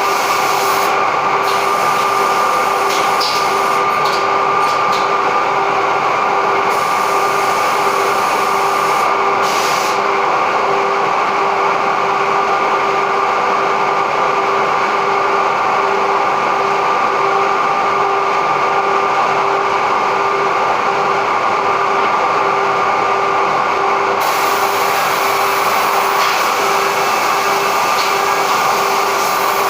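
Automatic edge banding machine running steadily, a constant machine whine over a broad hiss.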